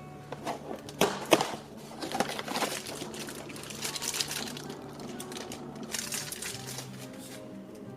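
Handling noise from the packaging and small plastic Playmobil pieces of an advent calendar: irregular crinkling with sharp clicks, the two loudest about a second in, over soft background music.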